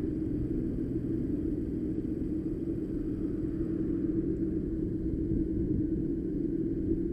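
Street go-kart driving along, its small engine and the road noise making a steady low rumble.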